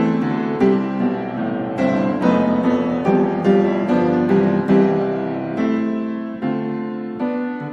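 Background piano music: a slow, gentle run of struck notes and chords, each fading away.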